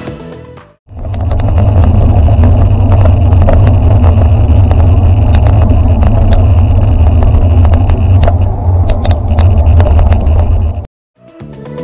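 Heavy wind buffeting on a bike-mounted camera's microphone while cycling in city traffic: a loud, steady low rumble with road and traffic noise from passing cars and buses, and scattered sharp clicks and rattles from the bike.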